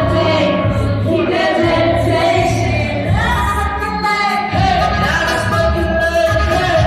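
Live hip-hop music: a sung vocal line over a pounding bass beat, heard through a concert hall's sound system.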